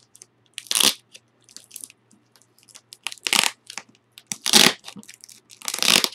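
Scotch tape being peeled and ripped off a cardboard box: four loud short rips, each well under a second, with faint crinkling of the tape in between.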